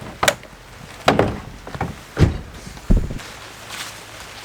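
A handful of separate knocks and thuds, the two loudest and deepest about two and three seconds in.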